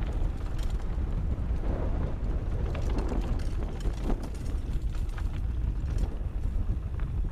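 Mountain bike riding down a rough dirt trail: the bike rattles and clicks irregularly over the ground. Wind buffets the microphone with a constant low rumble.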